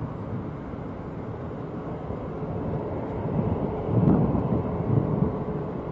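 Jet engine noise from a Boeing 777-200ER airliner as it lands and rolls down the runway: a steady, distant low rumble that swells about four seconds in.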